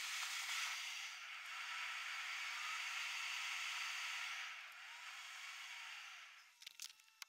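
Faint, steady hiss from a car driving along a road. It fades out about six seconds in, leaving near silence with a few faint clicks.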